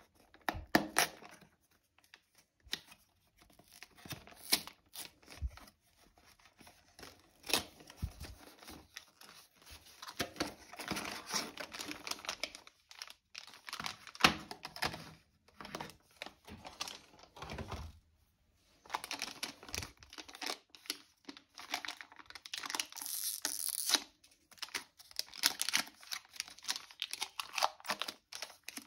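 Hands opening a box of Instax Mini instant film: the cardboard box rustling, then the foil film packs crinkling and being torn open. The sound comes in irregular bursts of crackling with short pauses.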